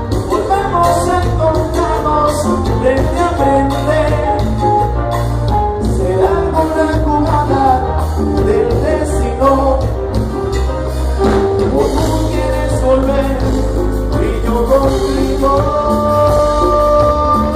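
Live Latin band playing a romantic medley through a loud PA, with a singer over heavy bass, guitars and keyboard. A long held note comes in near the end.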